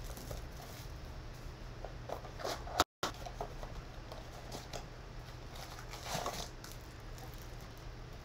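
Faint rustling and light taps of hands handling trading-card packs and a cardboard blaster box, over a steady low hum. The audio drops out for a moment about three seconds in.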